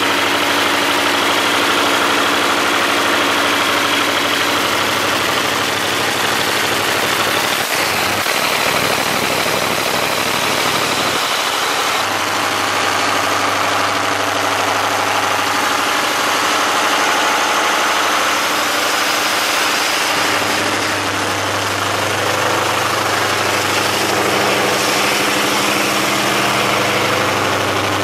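MTU diesel generator set running steadily during a load test: a loud, constant engine drone with steady tones. Its low hum shifts in level a few times, about twelve and twenty-one seconds in.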